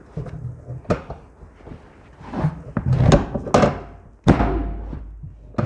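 A few dull thuds and knocks on a treatment table during a chiropractic adjustment. The loudest comes about four seconds in and is followed by a low rumble.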